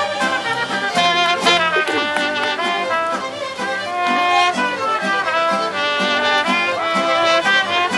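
A mariachi band playing a lively song, violins and trumpets carrying the melody.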